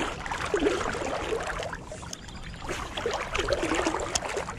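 River water flowing and lapping close to the microphone, with gurgling and a few short ticks.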